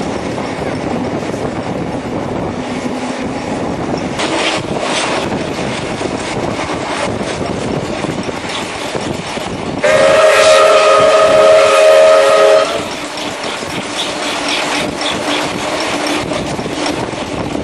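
Steady rolling rumble and rattle of a passenger carriage riding behind 1943 Baldwin steam locomotive AC16 221A. About ten seconds in, the locomotive's steam whistle sounds one long blast of nearly three seconds, several notes at once.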